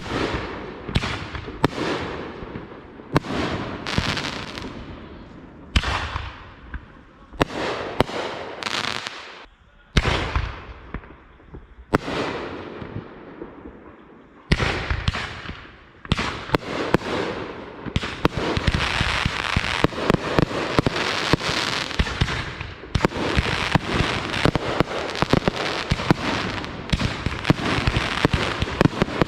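Consumer fireworks going off: a series of separate bangs, each trailing off, for the first half, then from about halfway a rapid, continuous barrage of pops and bangs.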